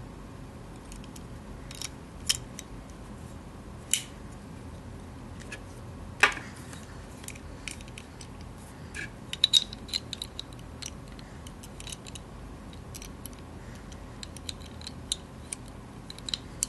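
Small metal parts of a CO2 air pistol's hammer assembly being handled and worked with tools: sporadic light clicks and taps, a few sharper ones about 2, 4 and 6 seconds in and a quick run of them around the middle.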